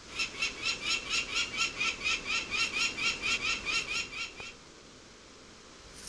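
A falcon giving a rapid series of harsh cacking calls, about four a second, which stop about four and a half seconds in.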